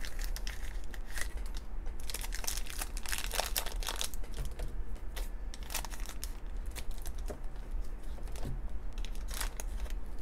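Handling of a small cardboard box, then a thin foil blind bag crinkling as it is cut open with scissors: scattered crackles and sharp snips.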